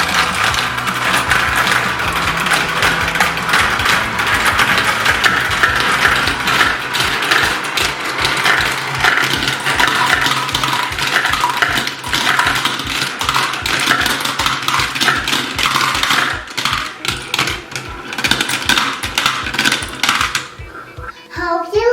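Many glass marbles rattling and clicking down a plastic marble run: a dense, continuous clatter that thins into separate clicks over the last few seconds and stops about 20 seconds in.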